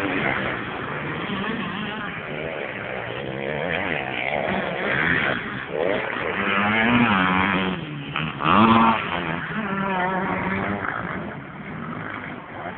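Motocross bike engines revving up and down as the bikes ride the dirt track, pitch rising and dropping with each throttle change and gear shift. The sound is loudest about eight and a half seconds in and fades near the end.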